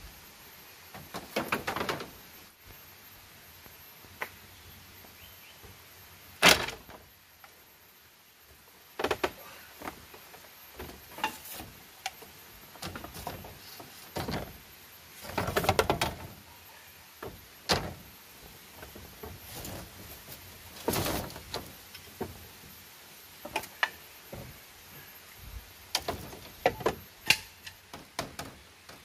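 Bamboo poles and slats knocking and clattering as they are handled and laid in place, in irregular knocks at uneven intervals, with a sharp loud knock about six seconds in and longer clatters around sixteen and twenty-one seconds.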